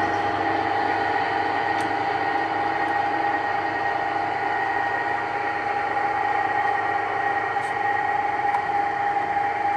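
2006 Runmaster RUN 330x1000RR precision toolroom lathe running steadily, its geared headstock and feed gearing giving an even mechanical hum with a high whine, while the carriage traverses under power feed at the minimum feed rate.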